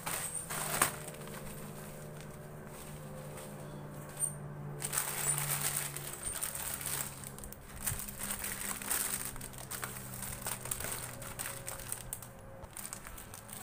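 Clear plastic bags around a stack of phone cases crinkling and rustling as they are handled and laid out on a desk, in irregular bursts that come and go.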